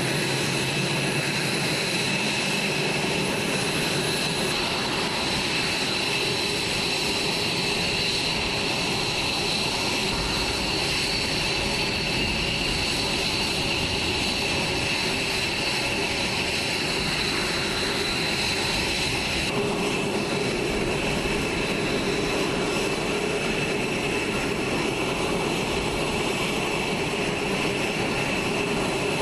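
Steady jet turbine whine, as of jet engines idling, with high-pitched tones over a constant rush of noise. The low rumble grows about ten seconds in and the whine's lower tone shifts up about twenty seconds in.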